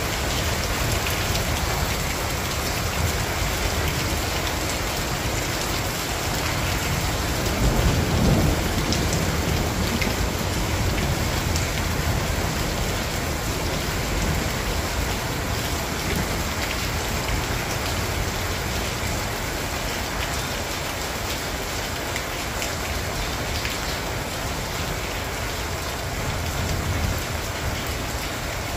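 Steady rain falling on a tiled patio and garden plants, with a brief low rumble about eight seconds in.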